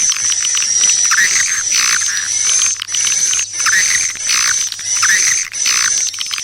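Swiftlet lure call track of the kind played to draw edible-nest swiftlets: twittering chirps that sweep downward about once a second, over a continuous high-pitched whine and rapid clicking. It has no bass.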